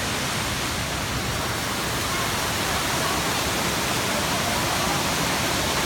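Kuang Si waterfall: water pouring down the falls in a steady, loud rushing noise.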